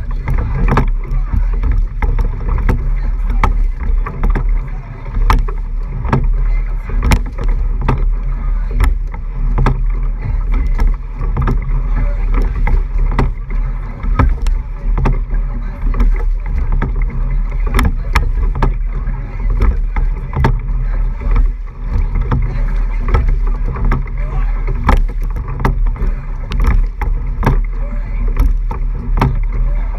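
Racing eight-oared rowing shell under way: water rushing along the hull and a heavy low rumble of wind and water on a hull-mounted camera's microphone, with frequent sharp clicks and knocks throughout.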